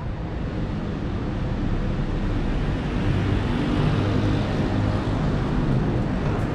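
City street traffic: a steady low rumble of passing vehicles that swells a little about three to four seconds in.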